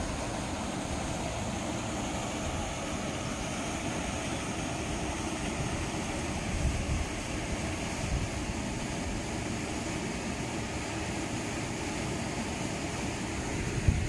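Steady rushing of water spilling over a low weir, with a few low bumps and a sharp thump near the end.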